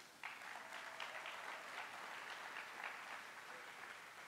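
Audience applauding, swelling in about a quarter second in and fading away near the end.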